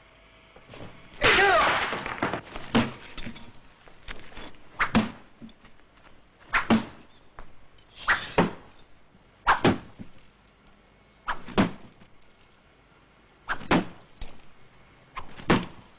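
Karate strikes landing hard on pads or a body, the impacts mostly coming in quick pairs every one and a half to two seconds. A short shout is heard about a second in.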